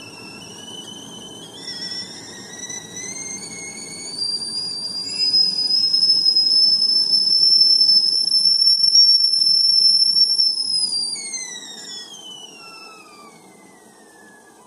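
Whistling kettle whistling at the boil: a shrill whistle of two or three pitches at once that climbs in pitch and grows louder over the first five seconds, holds steady and loud for about five seconds, then slides down in pitch and fades from about eleven seconds in.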